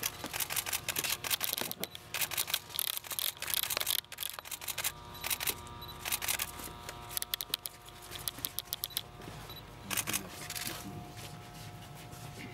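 Many camera shutters clicking in rapid, overlapping bursts as press photographers fire their SLR cameras; the clicking is densest in the first few seconds, thins out past the middle and bunches up again about ten seconds in.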